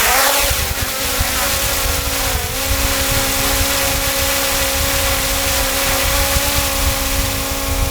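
Small DJI quadcopter drone hovering, its propellers making a steady, loud whine of several tones together, with a brief dip in pitch about two and a half seconds in.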